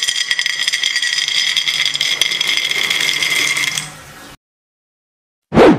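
Whole almonds poured into a ceramic bowl: a dense rattle of nuts striking the bowl and each other, with the bowl ringing, tailing off about four seconds in. Near the end, a brief, very loud burst of noise.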